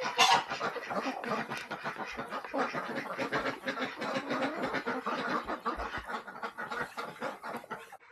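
A flock of domestic ducks quacking and chattering, many short overlapping calls without a break.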